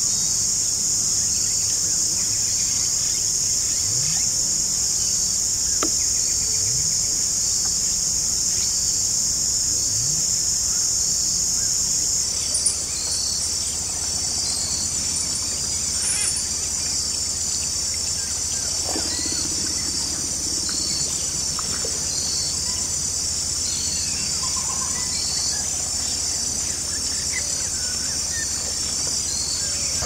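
Dense chorus of tropical wetland insects, a steady high shrill. About twelve seconds in it changes to a different chorus with a pulsing note about once a second, with faint occasional bird calls over it.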